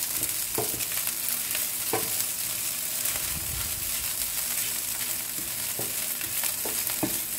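Cooked rice and pieces of fried egg sizzling steadily in a frying pan while being stir-fried with a wooden spatula, which scrapes across the pan now and then.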